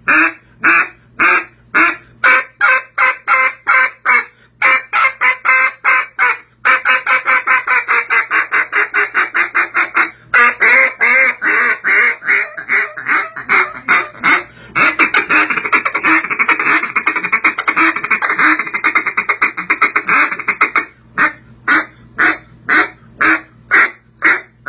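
Single-reed duck call (Tornado Valley Calls Thunderstik, built off a J-frame) fitted with a slightly longer reed and blown hard in aggressive cut-down style. It gives strings of loud quacks at about three a second, then long runs of fast, rolling notes from about six to twenty seconds in, and spaced quacks again near the end.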